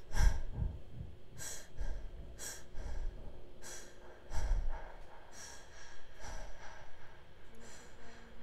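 A person breathing heavily in and out, roughly one breath a second, with the loudest breaths near the start and about four and a half seconds in.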